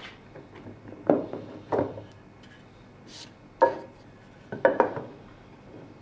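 Wooden apron being fitted onto and lifted off a segmented sliding dovetail, the wooden parts knocking and rubbing against each other: a series of sharp wooden knocks spread over the seconds, with a short scrape around three seconds in.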